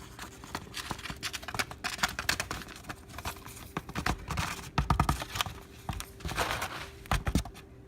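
Warmed, chopped toppings being tipped and scraped out of one dish into another, with a utensil clicking and knocking against the dishes and a few heavier thumps about four to five seconds in and again near the end.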